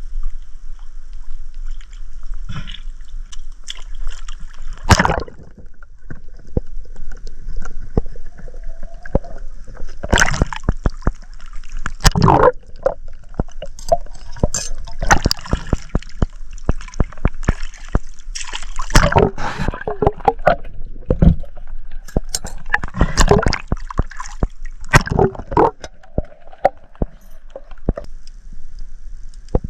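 Water sloshing and gurgling, with many irregular sharp clicks and louder splashes throughout.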